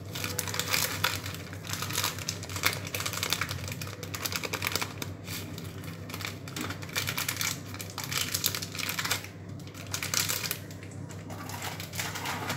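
Crinkling and rustling of a packet of Shan Bombay Biryani masala as it is handled and shaken over a pot, a rapid, irregular run of small crackles with a few brief lulls.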